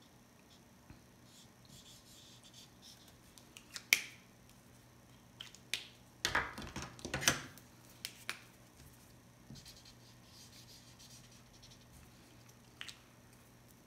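Fat Sharpie marker scratching across tracing paper in short shading strokes, with a few sharp clicks and a cluster of louder knocks and paper rustles about six seconds in.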